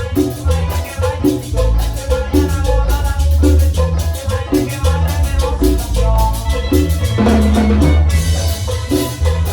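Live cumbia band music with violins, played over a steady beat with a heavy bass and percussion.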